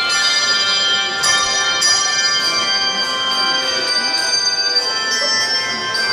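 Handbell choir ringing a piece together: many bell tones sounding at once and ringing on, with fresh strikes standing out about a second in and again just before two seconds.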